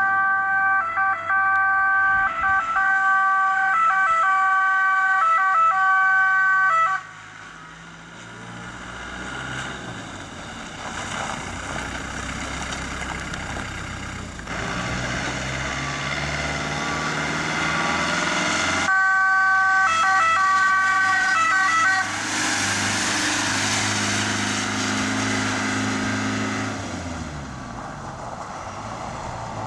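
Emergency-vehicle siren sounding as a held chord of several steady tones with short breaks, cutting off about seven seconds in and returning for about three seconds later. Between and after these, a Land Rover Defender ambulance's engine pulls away, its pitch climbing again and again as it accelerates through the gears.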